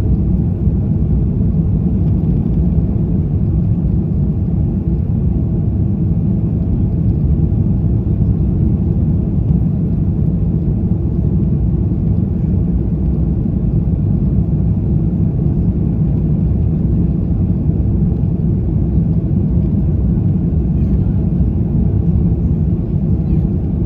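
Steady low rumble of cabin noise inside an Airbus A330-300 with its engines running.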